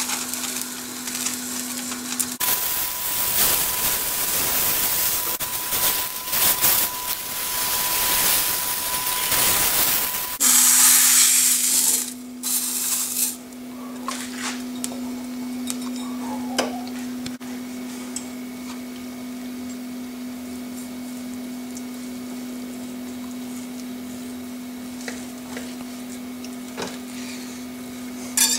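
Fish searing in hot oil in a frying pan: a loud steady sizzle that stops about thirteen seconds in. After that a steady low hum with light knocks and clinks as the fish is handled, and a short clatter at the very end.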